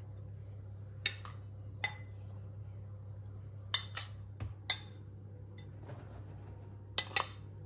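A utensil clinking and tapping against a mixing bowl, about six sharp clinks spread out, as the almond-flour and starch mixture is combined with whipped egg whites. A low steady hum runs underneath.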